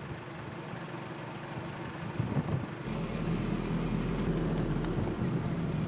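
Car engine and road noise of a vehicle being driven, a steady low hum that grows louder about three seconds in.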